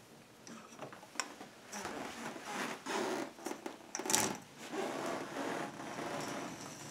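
Plastic K'NEX balls rolling along a K'NEX ball machine's tubing track, a steady rolling sound, with a few sharp plastic clicks as balls are picked up and set onto the rails, the loudest about four seconds in.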